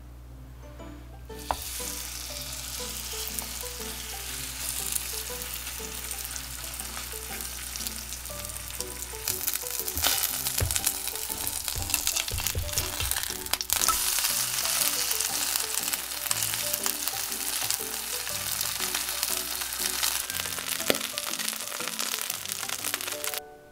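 Seafood scallion pancake frying in hot oil in a pan, a dense steady sizzling and crackling. It starts about a second and a half in and cuts off suddenly near the end.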